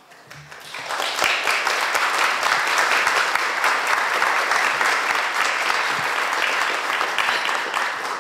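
Audience applauding: the clapping swells over the first second, holds steady, and starts to die away near the end.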